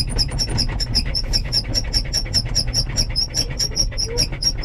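Fuel pump ticking fast and evenly, about seven clicks a second, over a low rumble. It is pumping hard to prime the fuel system of a 1954 Chevy truck.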